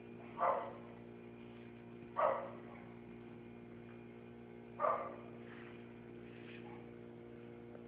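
A dog barking three times, a couple of seconds apart, over a steady electrical hum.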